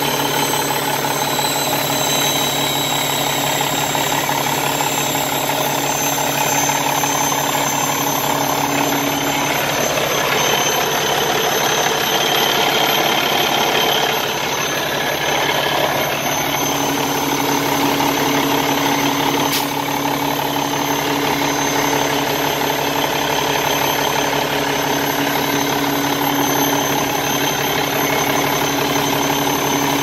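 Cummins ISX diesel engine idling steadily, heard up close at the turbocharger and exhaust manifold, with the abnormal noise on the exhaust side that the owner links to a broken turbo or a leaking exhaust manifold or manifold gasket.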